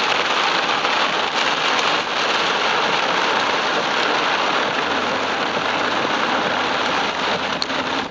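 Heavy rain hitting the windshield of a moving car, heard from inside the car: a loud, steady, dense hiss.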